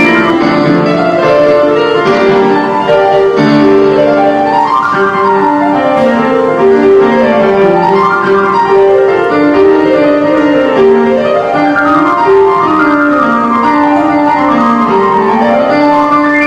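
Instrumental background music with runs of notes rising and falling in repeating waves.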